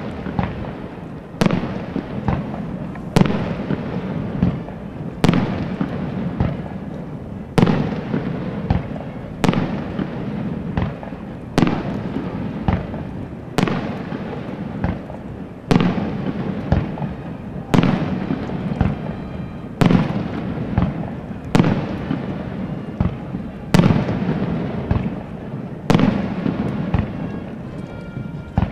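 Fireworks display: shells bursting in a steady run of sharp bangs, roughly one a second, with crackling between them.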